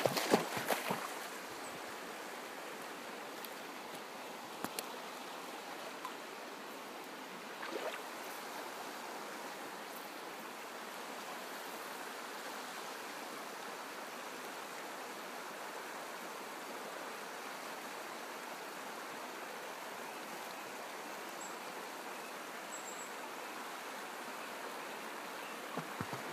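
Steady rushing of a shallow river flowing over a riffle, with a few brief faint knocks in the first second and around eight seconds in.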